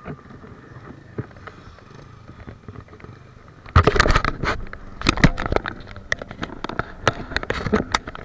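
Faint background for the first few seconds, then, a little under halfway in, a sudden run of scraping, rubbing and sharp clicks and knocks. This is handling noise of an action camera being taken off and carried, with things brushing and knocking against it.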